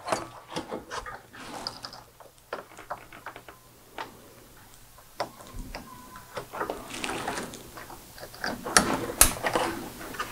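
Plastic wiring-harness connectors being pushed together and the wires handled: a string of irregular clicks and cable rustling.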